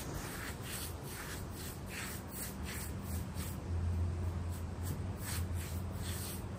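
Paintbrush scrubbing concrete stain onto a rough stamped-concrete floor: a quick series of short, dry scratching strokes, two or three a second. A steady low hum grows stronger about halfway through.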